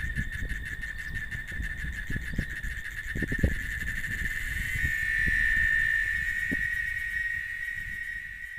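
A cicada (chicharra) singing: a steady, high, rapidly pulsing buzz that swells louder about halfway through and then eases off near the end. A low rumble with occasional knocks sits underneath.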